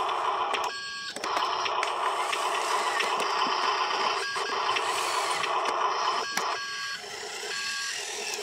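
Huina RC dump truck's electric drive motor and gearbox whirring as the loaded truck drives over mud. The whirring stops briefly about a second in and several times in the second half, and a thin steady whine remains in those pauses.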